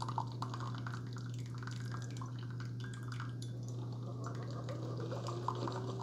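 Brewed coffee trickling from a Keurig K-Supreme Plus single-serve coffee maker's spout into a glass mug of coffee, with many small drips and splashes over a low steady hum.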